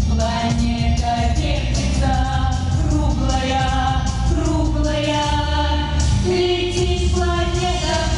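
A song: a sung vocal line in long, held notes over instrumental accompaniment.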